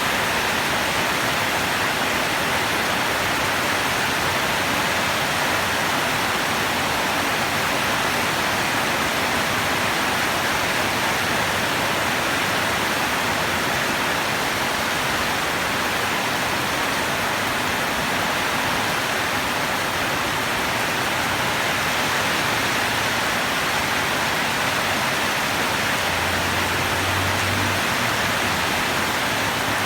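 Steady, continuous rain falling, an even hiss with no single drops standing out. A faint low rumble comes in briefly near the end.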